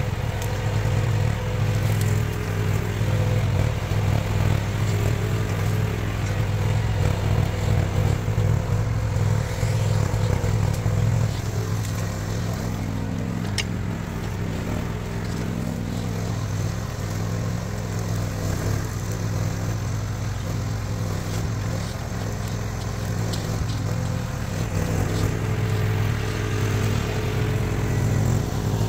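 Diggit EM15 mini excavator's engine running steadily, with a few sharp clicks over it; it drops back a little in the middle and rises again near the end.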